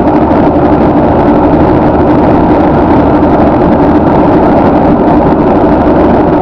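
Steady road noise of a car cruising at highway speed, heard from inside the cabin: a loud, even rush of tyres and wind with a low steady hum underneath.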